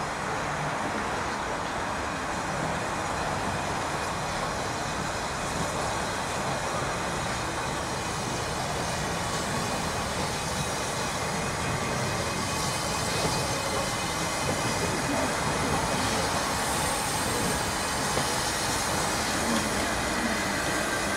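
Ivatt Class 2MT 2-6-0 steam locomotive moving along yard tracks towards the listener, growing a little louder as it draws near.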